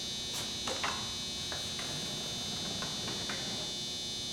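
Cleco fasteners being clicked into place, a series of about eight short sharp clicks, irregularly spaced, over a steady high-pitched whine.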